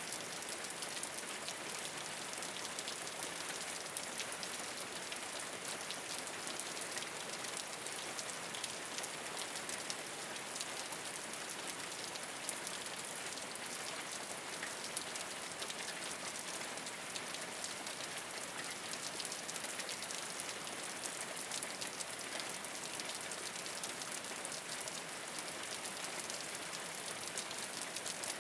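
Steady rain falling on a rooftop, a dense even patter of many small drop ticks without pause.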